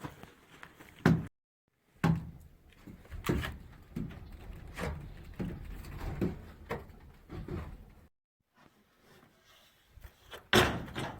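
Irregular knocks and clunks of handling work, loudest about a second in and near the end, broken twice by sudden cuts to silence.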